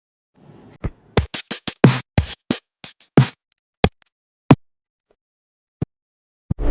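A quick, uneven run of sharp electronic drum hits that thins out to a few single hits after about three seconds. Sustained pitched music comes in right at the end.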